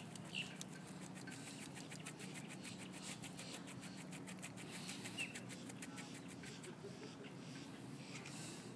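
Brown pelican preening, its bill working through its wing feathers: a fast run of soft rustling clicks, about five a second, that stops about seven seconds in. A faint low hum runs underneath.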